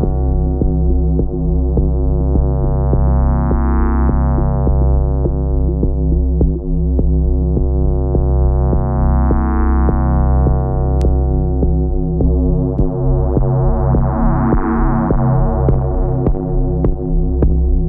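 Elektron Digitone FM synthesizer playing a sustained drone over a deep bass, its tone brightening and fading in slow swells about every five seconds. Short sharp ticks come in near the end.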